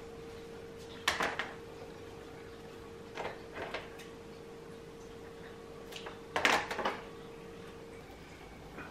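Kitchen handling sounds on a plastic cutting board: short clusters of knocks and clacks about a second in, around three seconds in, and loudest past six seconds, as an avocado, a lettuce leaf and a serrated knife are set down and worked. A faint steady hum runs underneath and stops near the end.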